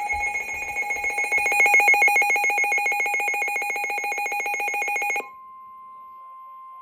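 Weather radio alert tones: a loud electronic warble of several pitches, pulsing rapidly and evenly. About five seconds in it switches to a quieter steady single-pitch tone, the warning alarm tone that announces a new warning.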